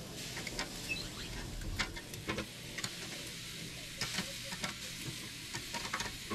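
Raw chicken fillets sizzling as they are laid on a hot grill grate, with metal tongs clicking against the grate and the pot now and then.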